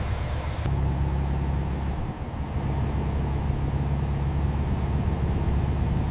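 Heavy machinery running with a steady, low engine drone, and a faint click about two-thirds of a second in.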